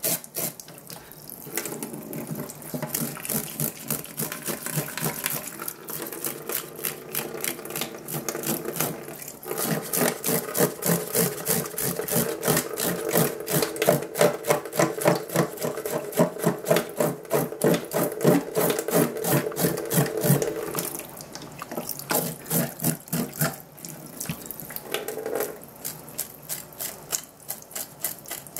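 Tap water running into a stainless-steel sink while a flatfish is rubbed and scraped clean, with rapid strokes several times a second. The sound is fuller and louder through the middle, then eases near the end.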